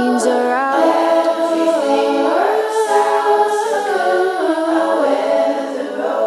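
Music of layered wordless vocal harmonies, a cappella style, with several voices holding notes and sliding together from chord to chord.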